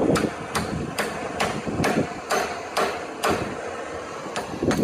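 Hammer striking a torch-heated steel chain ring on a pipe mandrel to form it, a quick run of sharp metallic blows about two to three a second, with a short pause near the end. A steady gas-torch hiss runs underneath.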